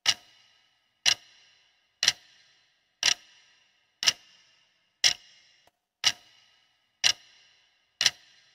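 Quiz countdown timer sound effect: a clock ticking once a second, nine sharp ticks, each with a short high ringing tail and silence between them.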